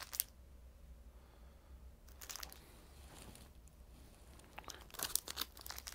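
Faint rustle of LP records and their sleeves being handled and flipped through, in three short spells: at the start, about two seconds in and near the end.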